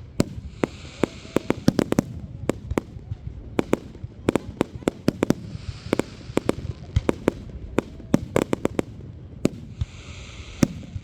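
Fireworks going off: a rapid, irregular string of sharp bangs and pops, bunched densest about two seconds in and again near the end, with stretches of high hissing crackle between them.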